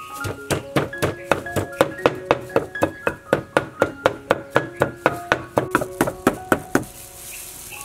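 Wooden pestle pounding in a mortar: a steady run of thuds, about three to four a second, that stops near the end.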